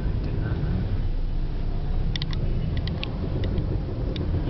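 Steady low rumble of road traffic heard from a vehicle moving through dense city traffic. From about two seconds in, a run of very short high-pitched beeps sounds in quick succession, with a few more near the end.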